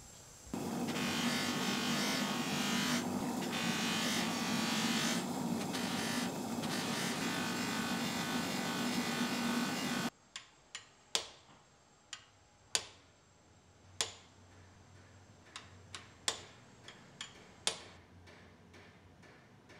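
An electric machine in a metalworking shop runs steadily with a hum and hiss, then cuts off suddenly about ten seconds in. After it stops come about a dozen sharp, irregular metal taps, each with a short ring.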